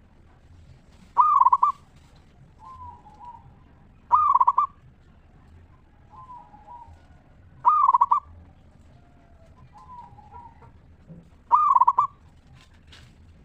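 Zebra dove (perkutut) cooing song: four loud calls about three to four seconds apart, with softer warbling notes between them.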